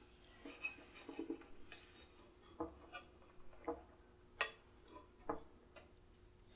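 Faint, light clinks and taps of cutlery on plates at a dinner table, coming irregularly about two or three times a second, over a faint steady hum.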